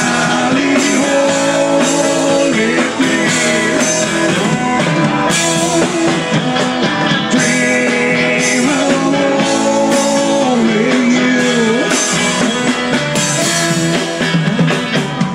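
Live rock band playing an instrumental passage: guitar with bending, sustained lead notes over drums and cymbals.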